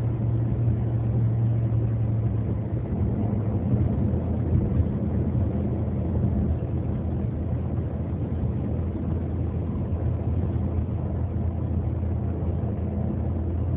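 Car engine running with a steady low rumble, its hum settling a little lower about three seconds in.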